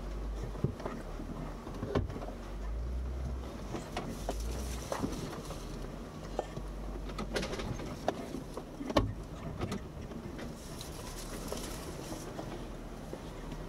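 Jeep Wrangler Rubicon crawling over rough off-road terrain, heard from the cabin: a low engine rumble under scattered sharp knocks and clunks, the loudest about nine seconds in.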